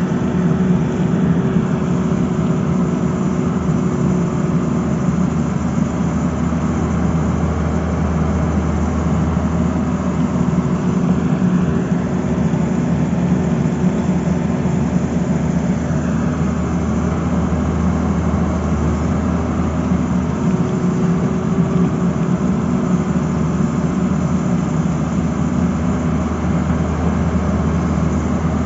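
Tata Hitachi crawler excavator's diesel engine running steadily while the machine digs, with a faint higher whine that comes and goes.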